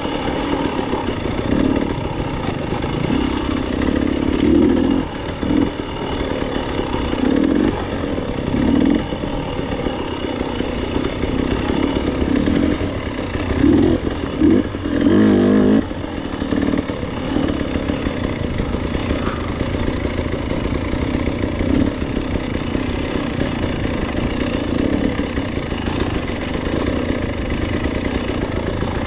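Two-stroke KTM 300 dirt bike engine running under a rider's throttle, revs rising and falling again and again, loudest about fourteen to sixteen seconds in.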